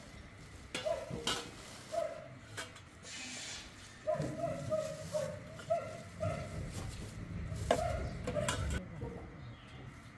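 Sapodillas being picked over and dropped into a plastic bag: scattered clicks, knocks and plastic rustles. A run of short, same-pitched calls sounds in the background, most of them about four to six seconds in.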